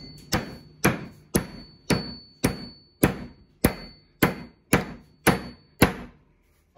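Hammer driving a glued wooden wedge into the top of a new wooden handle in a splitting maul's steel head, seating the wedge to lock the handle in the eye. About eleven sharp blows, roughly two a second in a steady rhythm, then a short pause and one more blow at the end.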